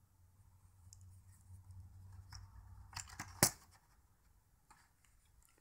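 Handling of metal-fitted butterfly knives: rustling that builds, then a few sharp metallic clicks, the loudest about three and a half seconds in.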